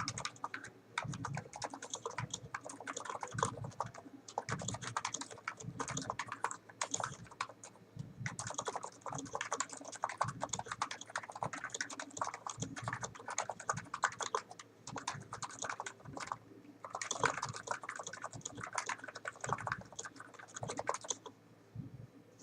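Typing on a Niz Plum NANO 75 electrostatic capacitive keyboard with 45 g switches: a fast, continuous stream of keystrokes with a few brief pauses, stopping about a second before the end.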